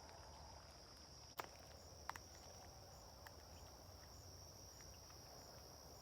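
Faint steady, high-pitched insect drone, with two short sharp clicks, one about a second and a half in and another about two seconds in.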